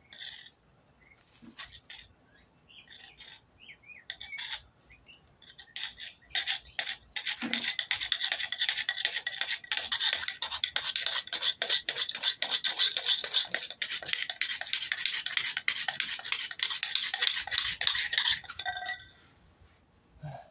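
Friction fire roll being rolled hard and fast under a flat wooden board on concrete: a few scattered scrapes, then a dense run of rapid scraping strokes from about seven seconds in until shortly before the end. The tinder roll is being worked to heat it towards an ember.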